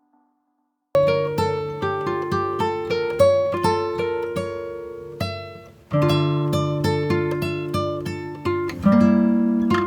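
Background music: acoustic guitar picking a melody, starting about a second in after a moment of silence, pausing briefly in the middle and resuming.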